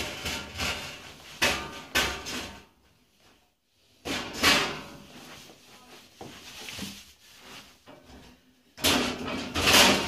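Metal box-section rack frame clattering and scraping as it is lifted and set down onto the lower section of the rack, in several bursts with a quiet pause about three seconds in. The loudest clatter comes near the end.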